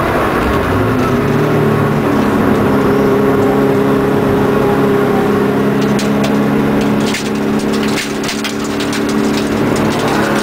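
Subaru Impreza wagon's flat-four engine heard from inside the cabin, revving up through the first second or so, then pulling at steady high revs. In the second half a run of sharp clicks and rattles comes in over it, with two short dips in the engine note.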